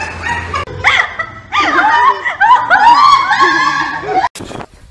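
A person laughing loudly in a high voice, cut off suddenly near the end.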